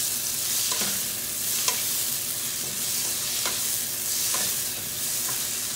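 Crumbled sausage with diced onion and tomato sizzling in a frying pan while a spatula stirs them: a steady frying hiss with a few light scrapes of the spatula against the pan.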